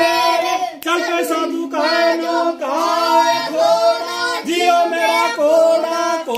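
Children chanting a Lohri folk song in high voices, in short repeated phrases with held notes.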